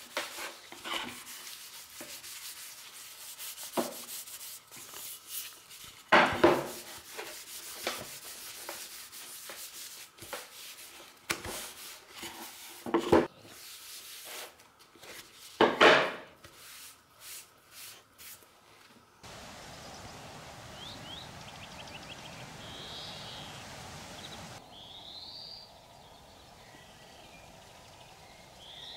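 A cotton rag rubbing linseed oil into a wooden cutting board in uneven strokes, with a few louder scrubs. About two-thirds of the way through, it gives way to a steady outdoor hiss with short bird chirps.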